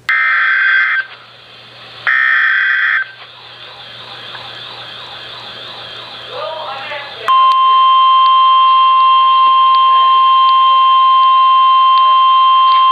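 Emergency Alert System header: two screechy bursts of digital data, each about a second long, with a second's gap between them. About seven seconds in, a loud, steady single-pitch alert tone starts and holds, signalling a tornado watch update.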